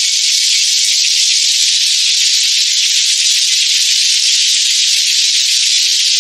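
A loud, steady, high-pitched hiss with no low tones, unchanging throughout.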